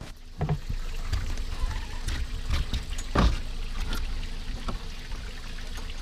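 Water sloshing around a small boat's hull on a river current, with a few scattered knocks and bumps as the bow works into a brush pile; the loudest knock comes about three seconds in.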